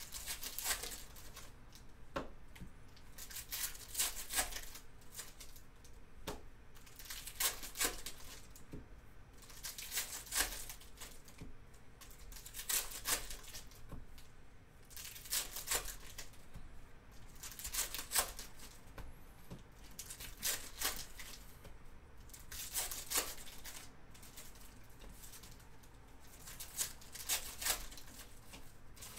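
Plastic wrappers of trading-card packs being torn open and crinkled by hand, one pack after another, in short rustling rips about every two to three seconds.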